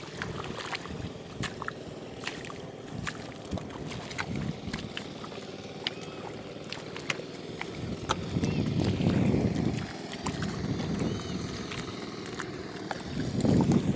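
Wet mud and water in a flooded rice paddy squelching and sloshing as it is worked by hand and waded through, with many small wet clicks. There are louder low rumbles about eight and a half seconds in and again near the end.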